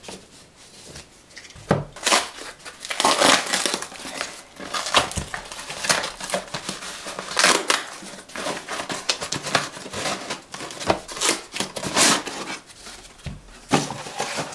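Paper rustling and crinkling in irregular bursts: a stack of printed bookmarks being handled and brown kraft paper packing material being crumpled.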